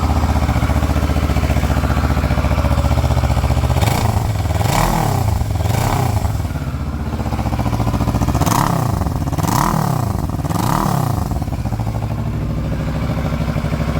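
Kawasaki Versys 650's parallel-twin engine idling through its stock muffler, which has three holes drilled in it to make it louder. The throttle is blipped twice about four seconds in and three times about eight seconds in, each rev rising and dropping back to idle.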